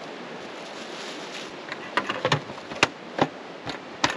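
Several sharp clicks and knocks, about six in under two seconds, starting about two seconds in, over a steady background hiss.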